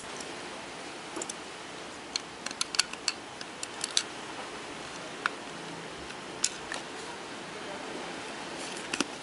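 Light, scattered clicks and ticks of a thin metal piece tapping and scraping against the plastic body of a handheld wireless microphone as it is worked into a slot at the body's seam, about a dozen sharp clicks over a faint steady hiss.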